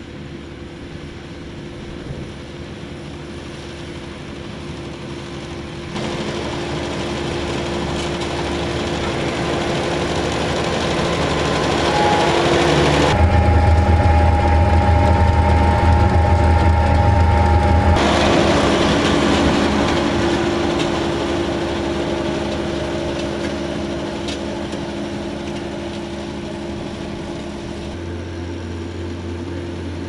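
Farm tractor engine running while it pulls a Vermeer round baler picking up windrowed hay. The steady machine noise changes abruptly several times, and it is loudest in the middle, with a deep hum and a steady high whine while the baler's pickup is working.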